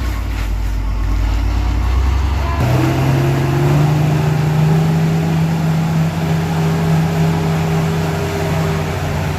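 Truck engine running: a deep rumble, then about three seconds in a steady engine note rises up and holds, over a steady hiss of road noise.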